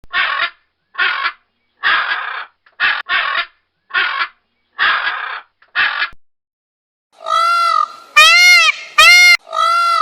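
A crow cawing: about eight harsh caws, roughly one a second. About seven seconds in, loud bleating calls begin, each rising and falling in pitch.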